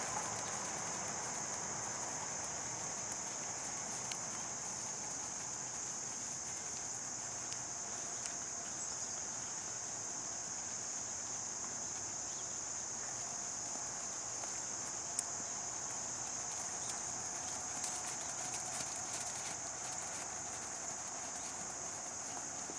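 Horse trotting on arena sand, its hoofbeats soft and faint, over a steady high-pitched chirring of insects that runs unbroken and is the loudest thing heard.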